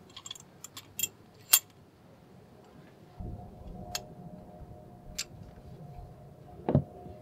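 Metal clicks and clinks from a restored cast-iron bench vise being handled, its sliding steel T-handle knocking against its end stops. There is a quick cluster of clicks in the first second and a half, then single clinks every second or so. From about three seconds in, a low rumble with a faint steady tone runs underneath.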